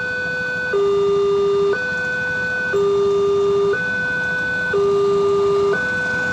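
Railway level-crossing warning alarm sounding a two-tone electronic signal, switching between a higher and a lower tone about once a second, the higher tone louder. This is the warning that a train is approaching the crossing.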